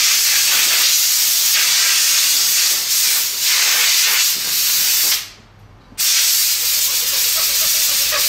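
Compressed-air blow gun blasting dust out of a paper panel air filter to clean it: a loud, steady hiss that stops for about a second around five seconds in, then starts again.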